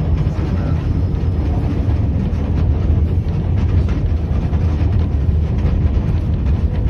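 Vintage MTV-82 tram under way, heard from the driver's cab: a steady low rumble of the running gear and motors.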